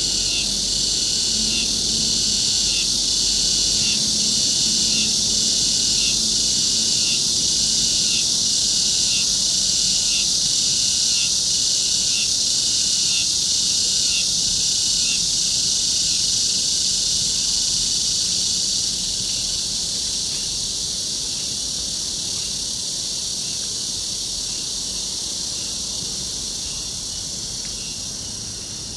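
A dense chorus of summer cicadas shrilling steadily and high-pitched, with a faint regular pulsing a little faster than once a second. It eases slightly past the middle.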